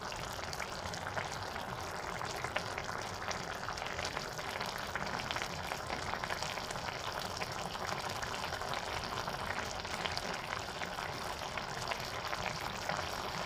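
Fish caldereta sauce simmering in a pan: steady bubbling and sizzling with many small crackles.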